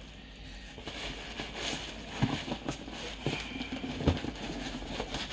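Cardboard packaging being handled and opened by hand: irregular rustles, scrapes and small knocks, with sharper knocks about two and four seconds in.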